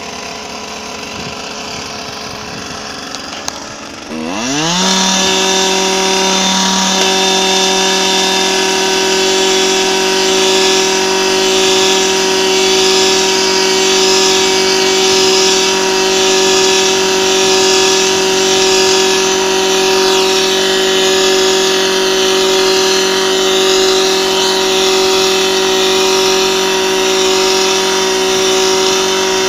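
Gas-powered handheld earth auger: its engine runs slowly for about four seconds, then is throttled up with a rising whine and holds a steady high speed as the bit bores into frozen ground.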